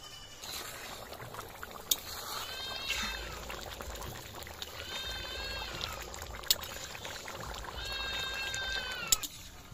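An animal calls three times, each call about a second long and rising then falling in pitch. A steel ladle clinks sharply against the kadai a few times as the curry is stirred.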